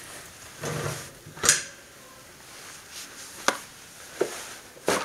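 A wood stove's door being shut and latched: a short scrape, a sharp clank about a second and a half in, then a few lighter clicks.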